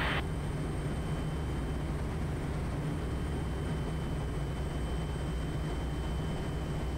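Steady drone of a Quest Kodiak's PT6 turboprop engine and propeller on final approach, with a faint steady high whine above it.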